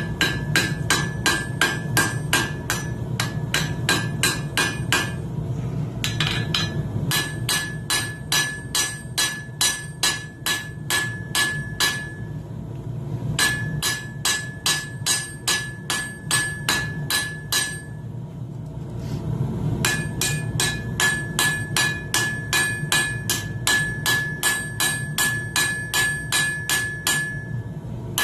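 Hand hammer striking coil-spring steel on an anvil during tong forging, blows coming about three a second in runs with a ringing note on each, broken by three short pauses. A steady low hum runs underneath.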